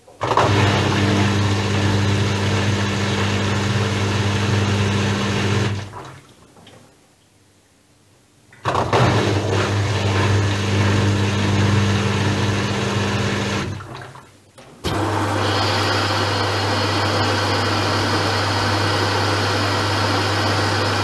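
Regal 8121 washing machine filling with water through its inlet valve: water rushing in over a steady low mains hum. The flow stops twice for a couple of seconds, then runs on steadily from about halfway through.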